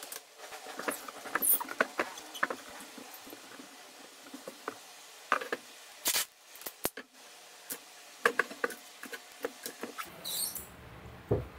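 Packaging tape being handled on a silk-screen frame: scattered crackling, rustling and light taps as tape is pulled from the roll and pressed down by hand along the frame's edge, with a short high-pitched screech about ten seconds in.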